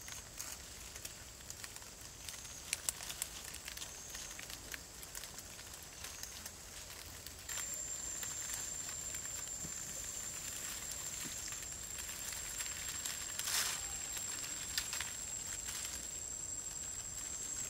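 Forest ambience: a steady high-pitched insect buzz, louder from about seven seconds in, over light crackling and rustling of dry leaves.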